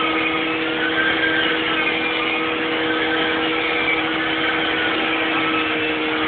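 Carpet-cleaning machine running steadily as its round head is worked across carpet: a constant motor sound with two steady tones under a noisy whir.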